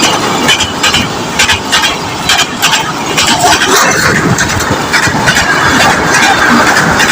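Train passing at speed, a loud steady rush of wheels on rails with repeated irregular clattering knocks.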